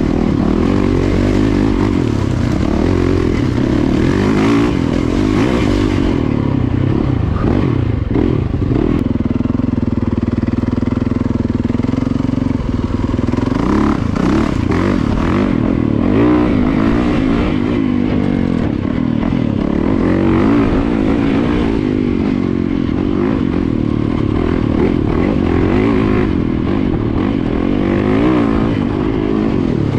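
Yamaha YZ450FX dirt bike's single-cylinder four-stroke engine being ridden, revving up and down with the throttle, with a steadier stretch about a third of the way in.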